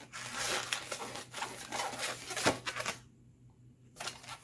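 Latex modelling balloon being twisted and handled, the rubber rubbing against itself and the hands, with a sharp click about two and a half seconds in; the rubbing dies down after about three seconds.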